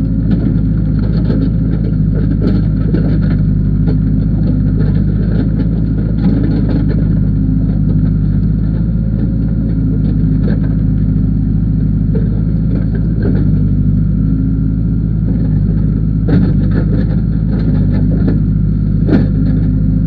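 Case backhoe loader's diesel engine running steadily, heard from the operator's seat while the backhoe arm is worked with the control levers. Scattered short knocks and clicks sound over it, more of them near the end.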